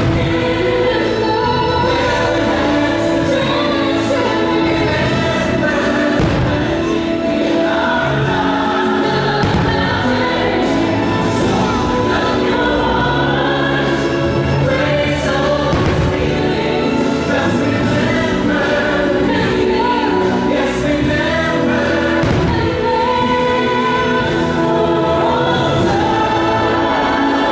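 Fireworks-show soundtrack music: a choir singing over an orchestra, full and steady, with a few faint firework bangs under it.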